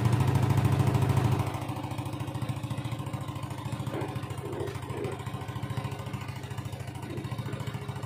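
Yamaha NMAX scooter's single-cylinder engine running through an aftermarket Yoshimura slip-on exhaust. It runs louder at first, then drops back to a steady idle about a second and a half in.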